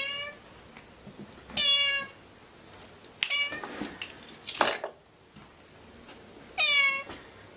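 Domestic cat meowing four times. Each meow is about half a second long and falls in pitch. A short burst of noise comes a little past the middle.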